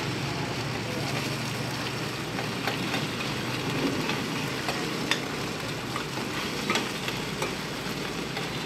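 Cubes of bột chiên (rice flour cake) sizzling steadily on a large flat pan. Metal spoons scrape and clack against the pan every so often as the cubes are stirred and turned.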